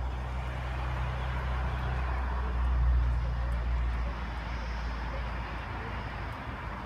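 Oscar H-set electric multiple unit train approaching along the line, a steady low hum and rumble that swells a little about three seconds in.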